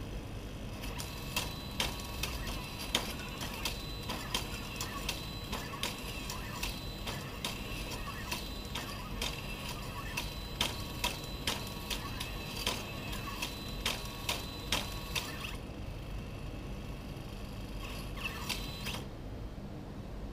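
Delta robot's stepper motors driving its arms: a steady whine of several high tones with frequent irregular clicks. It stops about three-quarters of the way through, starts again moments later and stops shortly before the end.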